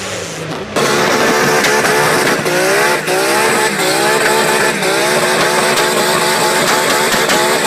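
A person imitating a racing car with their voice, starting sharply just under a second in: an engine-like drone whose pitch climbs again and again, like an engine revving up through the gears.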